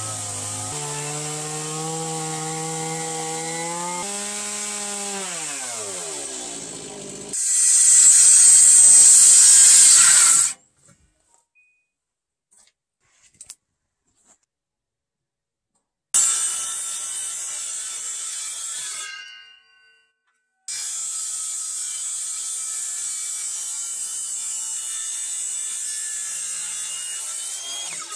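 A Stihl chainsaw runs with its engine pitch wavering and then falling. It then cuts into the timber at full throttle, the loudest part, for about three seconds, and stops abruptly. After a few seconds of quiet with a few small knocks, an electric circular saw starts with a burst that fades away. It then runs steadily, cutting a tenon into a beam, until the end.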